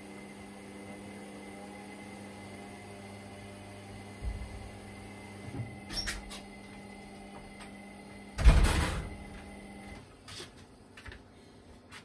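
Indesit IWDD7143 washer dryer running a tumble-dry cycle: a steady motor hum with a few soft thumps and one loud thump about two-thirds of the way through. The hum stops shortly after the loud thump.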